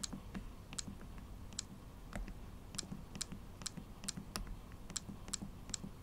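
Close, faint clicks of a Fujifilm X-series camera's control buttons, pressed one at a time, two or three a second, to step a cursor across the on-screen keyboard while a custom setting is named.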